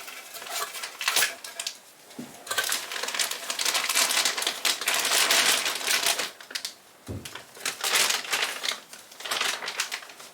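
Plastic bag of black coating powder being handled and opened, crinkling in irregular bursts, busiest in the middle, with a few sharp clicks.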